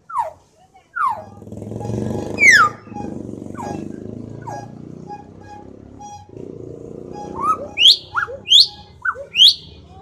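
Hill myna giving loud, sharp whistles: a string of quick falling whistles in the first half, then a burst of four or five piercing whistles near the end. A low rumble sits underneath for the first six seconds or so.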